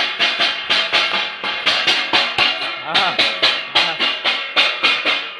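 A steel plate struck rhythmically, about four sharp metallic strikes a second, each ringing briefly.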